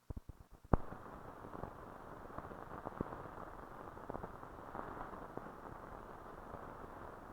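Steady low hiss with scattered crackles and ticks from an old film soundtrack, with no programme sound on it. It opens with a few sharp pops, the loudest just under a second in.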